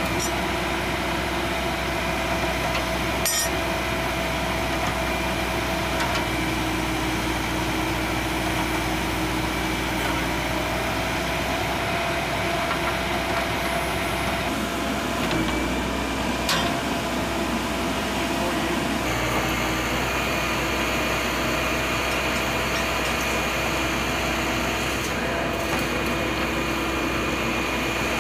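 Diesel engine of a Hyundai H940 backhoe loader running steadily under load while its bucket digs a trench, with two brief knocks.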